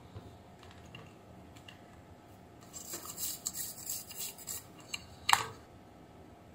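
Small handling noises at a repair bench: about two seconds of scratchy rustling, then one sharp click as steel tweezers handle a small surface-mount IC chip.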